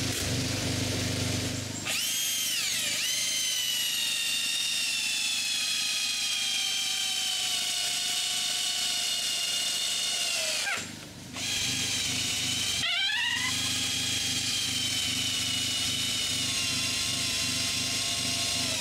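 Power drill driving screws into a wooden frame in two long runs, with a short stop about eleven seconds in. The motor's whine speeds up at the start of each run, then sinks slowly in pitch as it works.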